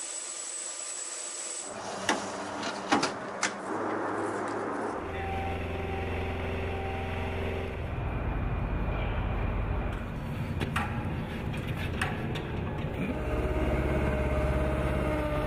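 A few sharp metallic clanks in quick succession, then a vehicle engine running steadily with a low hum, changing in tone abruptly a couple of times.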